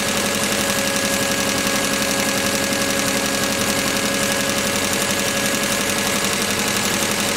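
Nissan H20 four-cylinder overhead-valve engine idling steadily with its rocker cover off, the exposed valve train making a rapid, even ticking. It is being run up to operating temperature after new valve stem seals were fitted, ready for the final hot valve-lash setting.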